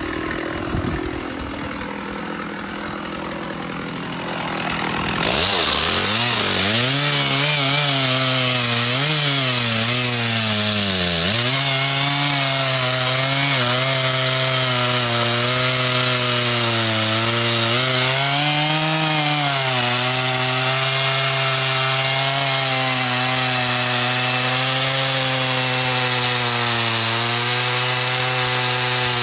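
Stihl 066 two-stroke chainsaw cutting into a big oak log at full throttle. After about five seconds of quieter, rougher running it goes loud and steady, its pitch sagging and recovering a few times as the chain bogs in the wood, then holding level.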